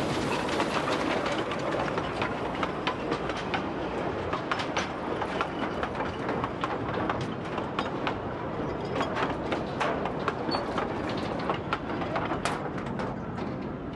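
Narrow-gauge train running, a steady rumble with many sharp, irregular clicks from the wheels on the track.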